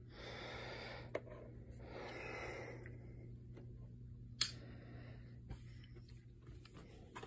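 Faint handling noises: soft rustling twice, a few light clicks and one sharp click a little past the middle, over a low steady hum.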